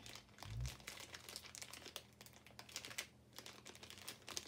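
Small clear plastic zip-top bag crinkling as it is handled and opened, an irregular rustle of quick crackles with a brief pause about three seconds in. A dull low thump about half a second in is the loudest moment.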